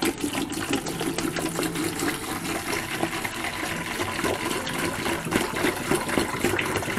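A gallon of spring water glugging as it is poured into a brew bucket, a steady splashing pour broken by uneven gurgles. It is let to glug in to get oxygen into the water for primary fermentation.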